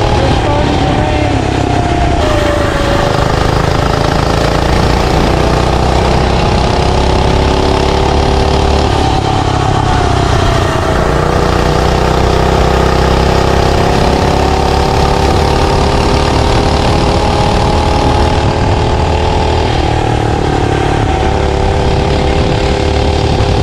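Hover Hearts MB001 mini bike's small single-cylinder gas engine running under load on a test ride. It is loud and continuous, with the engine pitch easing off and picking up again a few times as the throttle changes.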